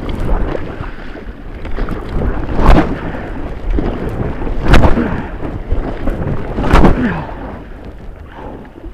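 Water splashing and slapping hard against a kayak right beside a boat-mounted camera as the kayak is rocked over and back. There are three heavy thuds about two seconds apart, and the splashing fades near the end.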